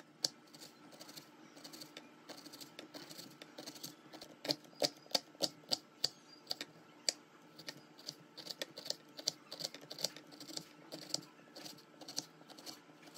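Kitchen knife dicing an onion on a wooden cutting board: a run of quick, uneven taps of the blade on the board, with a cluster of louder chops about four to six seconds in.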